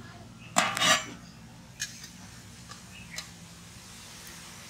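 Steel ladle clattering against a large aluminium plate as it tips out a boiled onion, tomato and dried chilli: a loud ringing double clatter about half a second in, then two lighter clinks.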